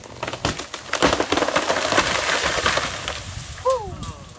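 A tree coming down: sharp cracks of splitting wood, then from about a second in a loud crash of breaking wood and branches that fades over the last second.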